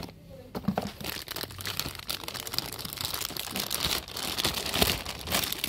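Thin clear plastic bag crinkling and rustling as a new spinning reel wrapped in it is lifted out of its box and handled, in a busy stream of crackles from about a second in.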